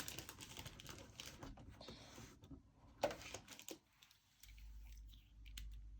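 A ruler and pencil being set down and handled on a paper planner page: a light knock at the start and another about three seconds in, with soft paper rustling between. A faint low hum comes in near the end.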